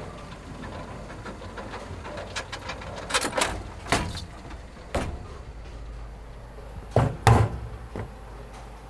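A string of irregular knocks and bangs, the loudest two close together about seven seconds in, over a steady low hum.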